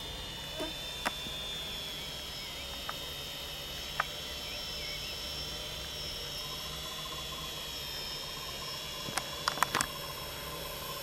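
ArduCopter quadcopter's electric motors and propellers whining steadily in flight under autopilot, with a few sharp clicks, the loudest of them bunched together near the end.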